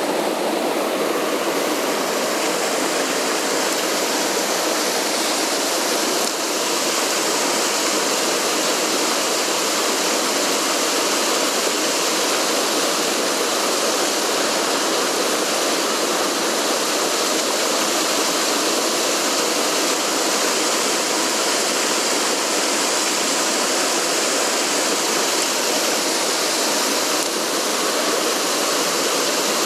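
Mountain stream rushing: a steady, even wash of flowing water.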